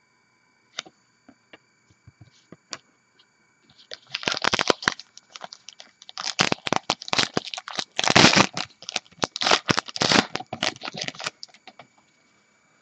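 A foil 2014 Topps Gypsy Queen baseball card pack wrapper being torn open and crinkled by hand: a few small clicks, then several seconds of dense crinkling and tearing that stops shortly before the end.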